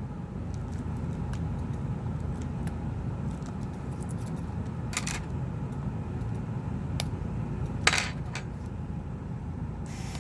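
Small metallic clicks and taps as screws are worked out of a Samsung Galaxy Tab 4 with a screwdriver, the sharpest about eight seconds in, over a steady low hum.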